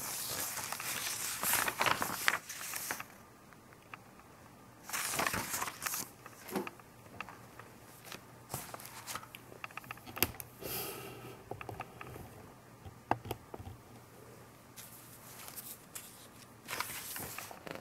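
Glossy magazine pages being handled, slid and turned: several spells of paper rustling a second or two long, with small ticks and taps in between.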